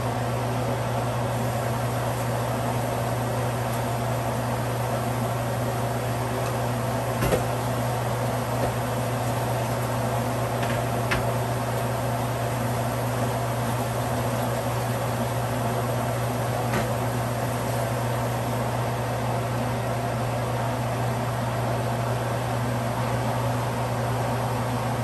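Steady machine hum, with a few light clicks and knocks now and then, the sharpest about seven seconds in.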